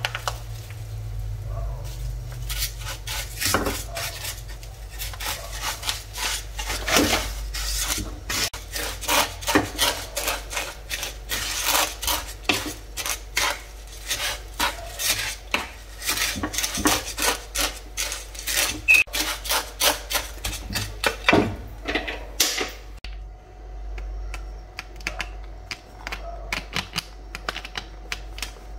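Wooden spatula stirring and scraping dry roasted vermicelli and milk powder around a nonstick frying pan: rapid, uneven scrapes and light knocks, thinning out in the last few seconds.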